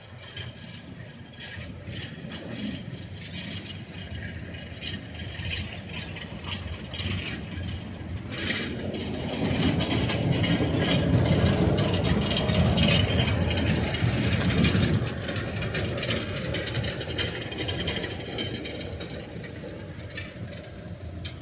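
Rumble of a road vehicle driving past. It swells from partway through, is loudest around the middle, then fades away.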